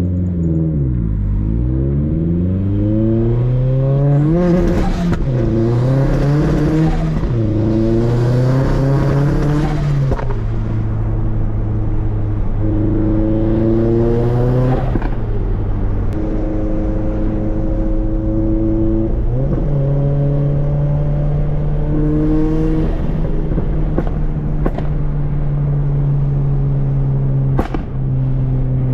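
Turbocharged Scion FR-S's flat-four engine breathing through a Tomei 80R titanium catback exhaust while driving, heard from the car with the windows down. Its pitch climbs and drops back at three upshifts in the first ten seconds, then it cruises at a mostly steady engine speed with a few brief rises, under a steady rush of wind.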